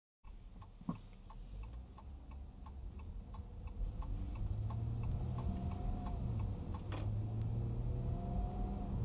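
A car's turn-signal indicator clicking about three times a second, over low engine and road noise that grows louder as the car pulls away from a turn and speeds up. One knock about a second in, and a sharp click about seven seconds in.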